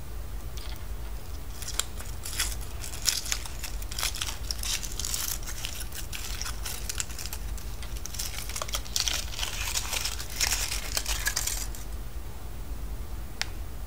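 Thin foil wrapper crinkling and tearing as it is peeled off a surprise egg, in a dense run of crackles that thins out near the end, followed by one sharp click.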